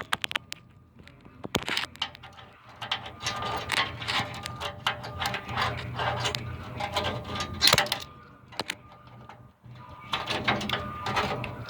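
Irregular metal clicks, scrapes and rattles of needle-nose pliers working a steel cotter pin on the trailer's tandem-release pin linkage, spreading its legs to lock it in place. A steady low hum runs underneath.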